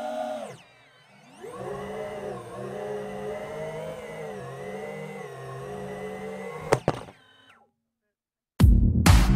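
The 5-inch FPV quadcopter's brushless motors and propellers whine, the pitch rising and falling with the throttle, with a brief cut about half a second in before they spool back up. Just before seven seconds a couple of sharp knocks come as the quad comes down onto the road and the motor sound stops. Loud music starts near the end.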